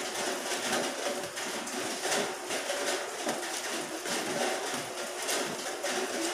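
Close mouth sounds of eating by hand: chewing and smacking on rice and deep-fried pork intestine chicharon, with many short crunchy clicks at an uneven pace.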